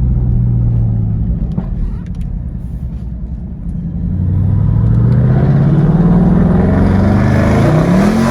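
A Dodge Durango 392's 6.4-litre HEMI V8 pulling away under throttle: a steady engine note for the first few seconds, then rising in pitch and getting louder from about halfway in as the SUV accelerates, with a change in pitch near the end.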